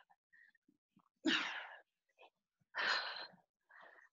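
A woman breathing hard from exertion: two sharp, forceful exhales about a second and a half apart, then a fainter one near the end.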